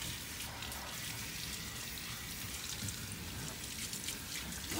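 Water running steadily from a kitchen faucet's pull-down sprayer, rinsing a beagle puppy's coat and splashing into a stainless steel sink.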